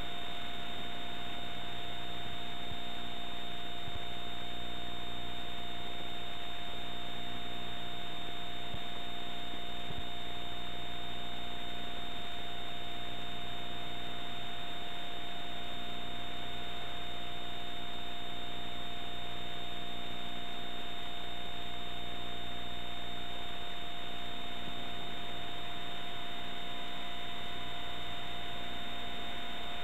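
Steady hiss and electrical hum with two constant whining tones, one mid-pitched and one high: the noise of the VCR and capture chain with no recorded sound on the tape.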